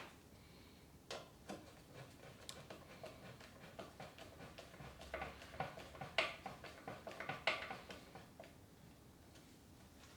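Scattered light clicks and knocks at an irregular pace, most frequent through the middle, with a few sharper ones.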